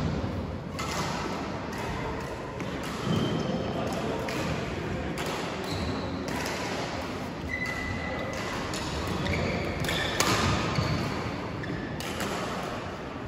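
Badminton rally: a string of sharp knocks and thuds from racket hits and footwork on the court, with a few short high squeaks.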